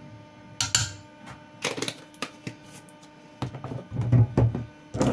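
Kitchen handling clatter: a metal spoon and a small glass spice jar knocking as they are handled and put down, with scattered clicks and a run of heavier knocks and thuds about three to four and a half seconds in.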